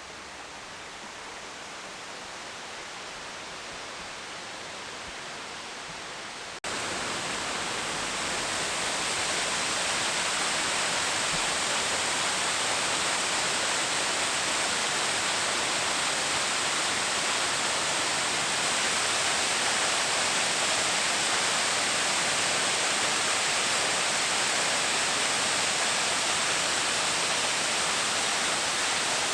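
Steady rushing of a waterfall. About six seconds in it cuts abruptly to a louder, fuller rush of the falls.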